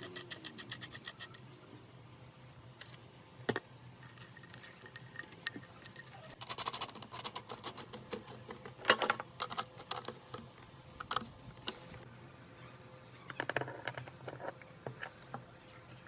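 Hand work on small metal parts and tools: a quick run of even ticks at the start, then scattered clicks, taps and scrapes, the loudest cluster about nine seconds in.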